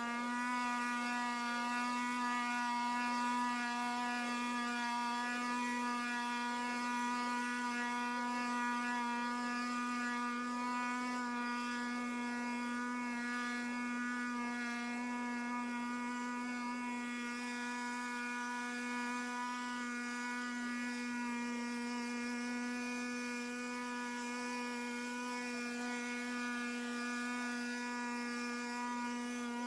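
Small two-stroke engine of a Stihl BG 61 handheld leaf blower, running steadily at one high, even pitch.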